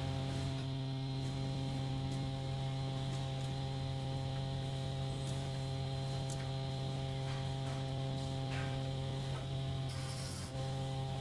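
Steady electrical hum at a fixed pitch with overtones, with a few faint clicks of wooden boards being handled and set against each other.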